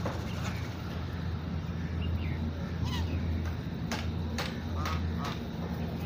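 Domestic ducks dabbling and upending in water, with several short, soft calls and sharp little splashes, over a steady low rumble.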